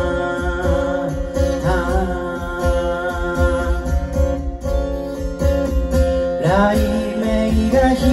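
Live acoustic guitar strumming with a man singing long held notes over it; his voice swoops up into a new note about six and a half seconds in.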